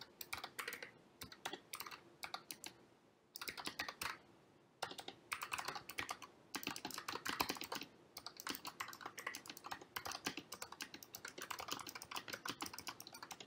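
Typing on a computer keyboard: fast runs of key clicks in bursts, with short pauses between them.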